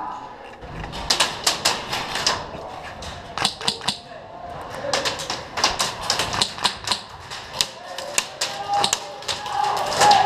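Airsoft guns firing: sharp cracking shots, some single and some in quick strings, coming irregularly.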